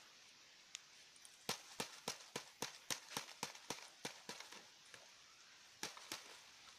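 A quick run of light, sharp clicks, about three or four a second for some three seconds, then two more near the end, from a hand working through red ant eggs on a woven bamboo tray.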